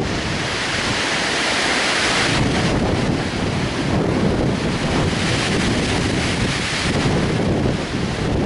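Very strong gusty wind rushing through trees, with heavy wind buffeting on the microphone. A stronger gust swells in the first couple of seconds and another comes near the end.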